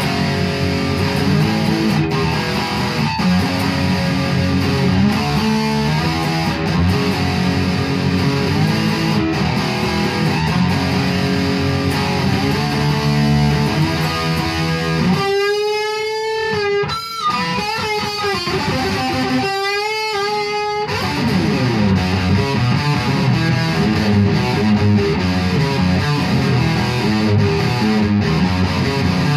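1966 Gibson Les Paul Custom electric guitar played through an amplifier: chords and riffs, with two long held notes wavering with vibrato about halfway through, then back to riffing.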